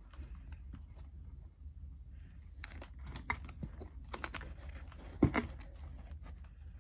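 Handling noise from a new sneaker being turned over in the hands: light rustling and crinkling with scattered taps and clicks, the sharpest about five seconds in.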